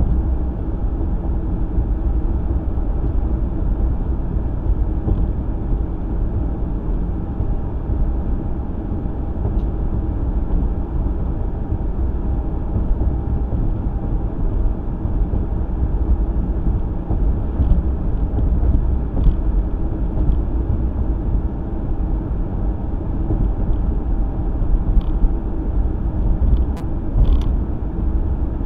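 Car driving, heard from inside the cabin: a steady low rumble of engine and tyre noise, with a few faint clicks in the later part.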